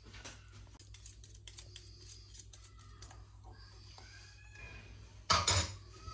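Metal spoon and small wire whisk stirring gelatin powder into hot water in a small ceramic bowl to dissolve it: quick, light clicks of metal against the bowl, with one louder clatter a little past five seconds in.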